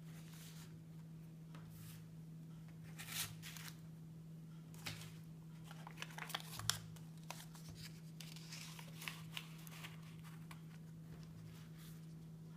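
Handling of a wallet phone case: plastic cards scraping as they slide into the card slots, and a paper banknote crinkling as it is folded and tucked in around the middle, with scattered light taps and rubs. A steady low hum runs underneath.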